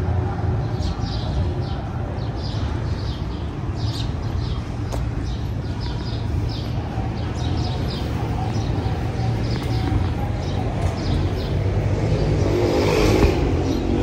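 Steady rumble of city traffic from the street beyond the courtyard, with footsteps on stone paving ticking about twice a second. Something in the traffic, such as a passing vehicle, swells louder near the end.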